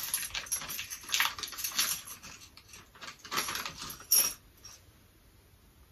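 A small clear plastic bag of furniture screws being handled: crinkling plastic with small metal parts clinking inside, in irregular bursts that stop about four seconds in.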